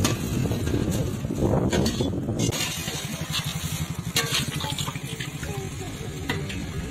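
Long metal ladle stirring thick aloo dum gravy in a large aluminium pot, with a few sharp clinks of the ladle on the pot's rim. Underneath runs a steady low rumble of a nearby engine and street traffic.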